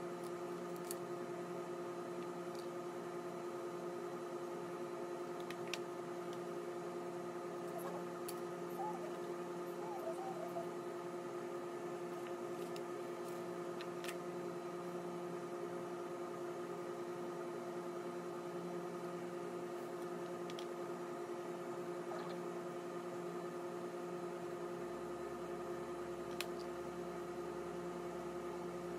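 A steady hum with several fixed pitches, like an appliance or electrical hum in a small room, with a few faint clicks and taps of makeup items being handled.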